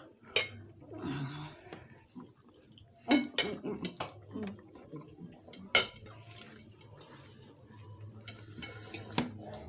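Metal forks clinking and scraping on ceramic plates as noodles are twirled and eaten, with a few sharp clinks spread through.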